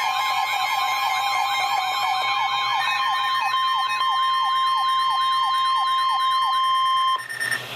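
NOAA Weather Radio's steady 1050 Hz warning-alarm tone, with an electronic siren-like alarm sweeping in pitch about three times a second over it. The tone cuts off about seven seconds in, leaving radio hiss.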